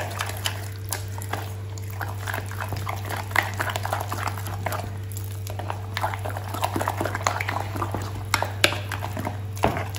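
A spoon stirring a thin batter of maida flour and water in a bowl: irregular wet clicks and taps against the bowl, over a steady low hum.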